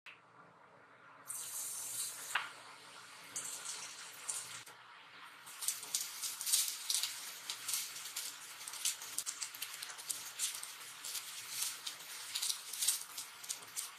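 Hot oil sizzling and crackling in a nonstick wok as chopped garlic and boiled rice fry in it. Two short bursts of sizzle come in the first few seconds, then a steady crackling sizzle from about five seconds in.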